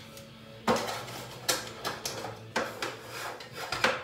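Plastic pregnancy-test cassettes being handled and set down on a countertop: several sharp clicks and scrapes at irregular intervals.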